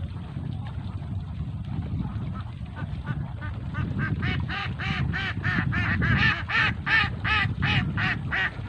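Domestic ducks (itik) quacking: a quick, even run of quacks, two to three a second, that starts about three seconds in and grows louder toward the end.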